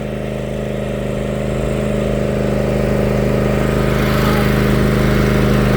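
Riding lawn mower engine running steadily at a constant speed, growing slightly louder over the first few seconds.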